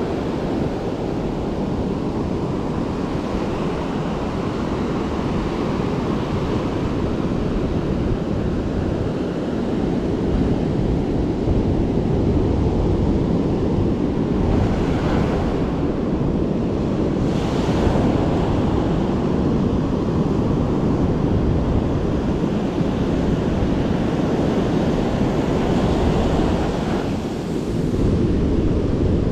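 Ocean surf breaking and washing up the sand, loud and steady, with wind buffeting the microphone.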